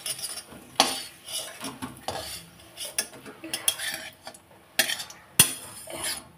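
A metal spatula scrapes and knocks against a steel kadhai while fried pakoras are pushed around and scooped out of it. The sound is a string of separate sharp scrapes and clinks, with the loudest about five and a half seconds in.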